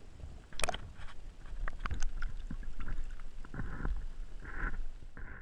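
Lake water sloshing and lapping against a waterproof camera at the waterline, with a low rumble, sharp clicks and knocks on the housing, and a few short splashing hisses in the second half.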